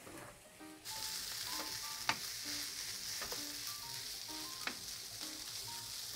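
Sliced onions sizzling in a frying pan, starting about a second in, with three sharp knocks as a wooden spatula stirs them against the pan.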